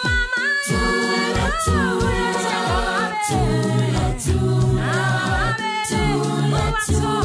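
A cappella choir singing in harmony as background music: held low notes under higher voices that slide between pitches.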